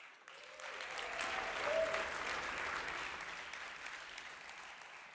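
Audience applauding, swelling over the first two seconds and then slowly dying away.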